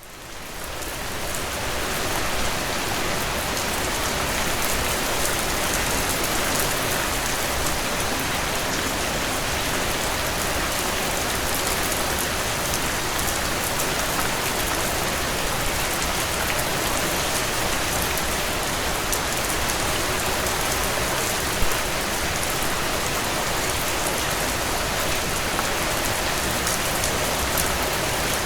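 Steady rain falling on surfaces: a dense, even hiss of drops sprinkled with fine ticks, fading in over the first two seconds. One louder tap comes about two-thirds of the way through.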